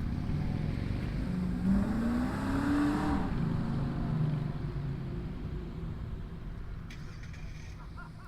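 A car engine rumbling and revving up, its note rising for a second or two, then fading away as the car drives off.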